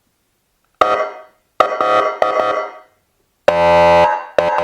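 Electronic air-horn tone from an AS580 siren amplifier, the second of its two horn tones, played through its loudspeaker. It comes in a run of short blasts of different lengths, with one longer, lower steady blast about three and a half seconds in.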